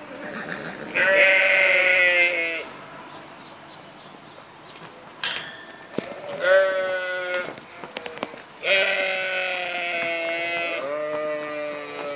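Sheep bleating: four long, high, slightly falling bleats of one to two seconds each, the last two close together near the end, with a few short knocks in between.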